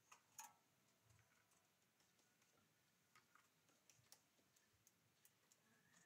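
Near silence broken by faint, scattered clicks, with two sharper clicks at the very start.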